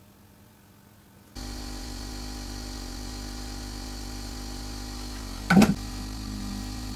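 A steady whirring hum, like a small motor or blower, starts suddenly about a second in, with one sharp clack about five and a half seconds in.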